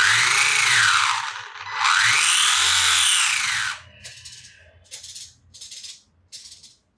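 Kyosho 540-class brushed motor on a 3D-printed F1 RC car revving up and back down twice with its wheels spinning free, its whine rising and falling with each throttle pull. After about four seconds it gives way to a string of short buzzes from the MG90S steering servo as the front wheels are turned back and forth.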